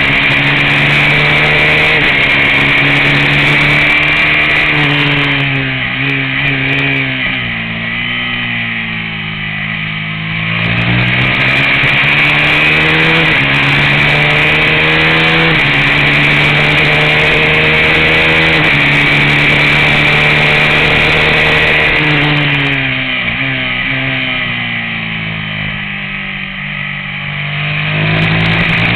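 Race motorcycle engine running hard on track, its pitch climbing and stepping with each upshift. Twice the revs fall away as it slows for corners, then climb again, over a steady rush of wind.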